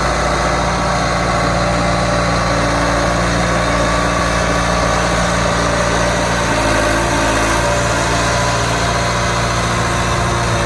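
Heavy machine's engine running steadily at an even, unchanging speed.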